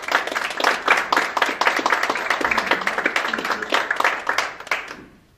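Audience applauding, a dense spell of clapping that dies away near the end.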